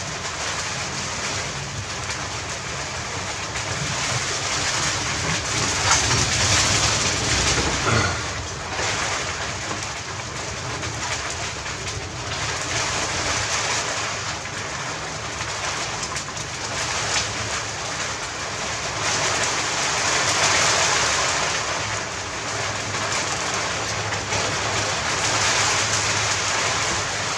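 Steady rushing noise that swells and fades every several seconds, with one sharp click about eight seconds in.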